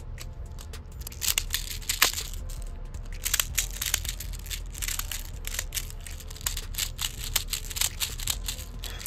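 Plastic airsoft BBs being loaded into an airsoft shotgun shell: many small, irregular clicks and rattles, with a few sharper clicks along the way.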